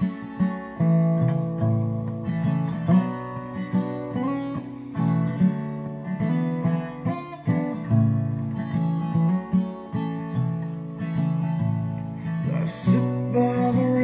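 Acoustic guitar strummed and picked, chords ringing on between strokes, in an instrumental break of a slow song.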